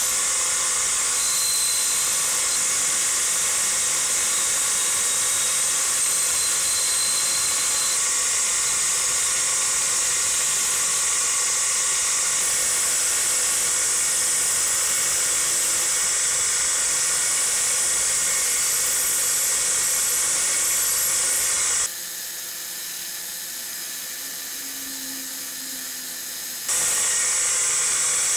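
Rusty metal drill parts held against a spinning bench grinder wheel to strip the rust: a steady, bright grinding noise. Near the end it turns quieter and duller for a few seconds, then comes back at full strength.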